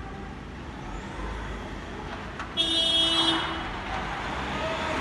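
A vehicle horn sounds once, a steady blast of about a second starting about halfway through, over a low background of street noise.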